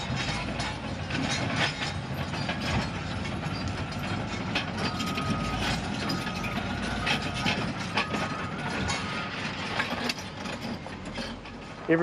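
Heavy earthmoving machinery working a rockfall: a Cat excavator clanking and rocks knocking over a low engine rumble. A high beep repeats several times in the middle.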